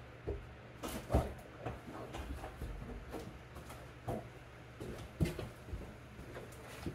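Irregular knocks, thumps and shuffling footsteps as a wolf carcass is carried in and handled, with the sharpest knock about a second in, over a steady low hum.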